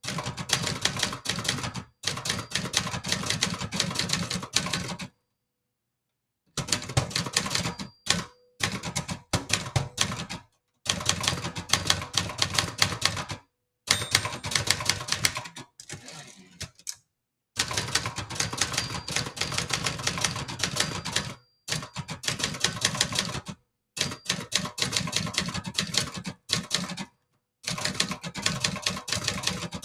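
Brother Charger 11 manual portable typewriter typed on at speed: rapid runs of crisp key and typebar strikes, broken every few seconds by short pauses.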